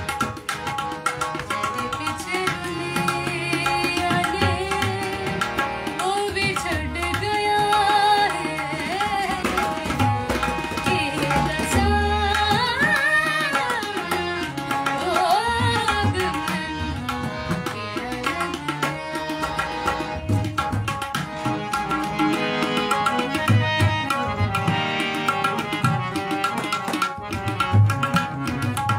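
A girl singing a ghazal to harmonium, with a steady hand-drum rhythm underneath. The voice is strongest in the first half and drops back about halfway through, while the harmonium and drums carry on.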